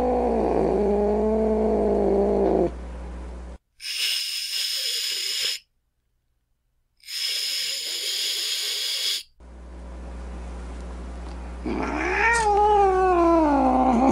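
Angry cat: a low, wavering yowl for the first couple of seconds, then two hisses of about two seconds each with a silent gap between them. About twelve seconds in comes another yowl that rises and then slides down in pitch.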